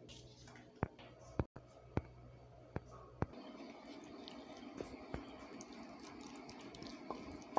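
Wooden spatula knocking against a stainless steel pan of onion-tomato masala as it is stirred: five sharp knocks in the first three seconds or so, then a faint steady stirring noise with a few light ticks.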